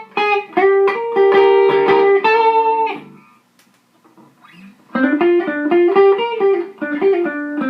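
Les Paul-style electric guitar played through a modded Fender Champ 600 amp and a Celestion G12H 12-inch speaker: phrases of single notes. The playing stops for about two seconds in the middle, then resumes.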